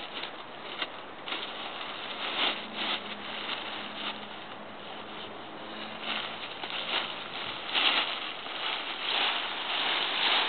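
Crinkly rustling of a Dyneema Composite Fabric (cuben fibre) ultralight tent as it is pulled out of its stuff sack and shaken open, in irregular bursts that grow louder in the last few seconds.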